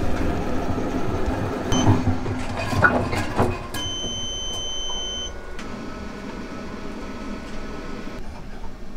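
Electric centrifugal honey extractor spinning frames of comb, a steady mechanical rumble with rattles and clicks. About four seconds in, a steady high beep sounds for a second and a half, and a quieter hum continues after it.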